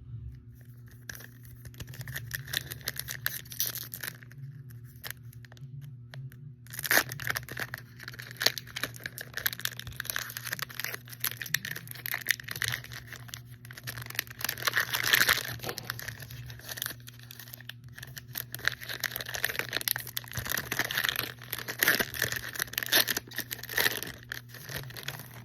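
Foil wrapper of a football trading card pack being torn open and crinkled, with the cards rustling as they are handled. There are irregular crackles and rustles, loudest in flurries about a quarter, halfway and four-fifths of the way through, over a steady low hum.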